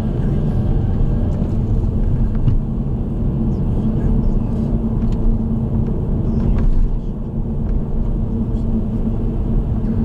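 Steady low rumble of a car driving along a road, heard from inside the moving car: tyre and engine noise with a steady hum underneath.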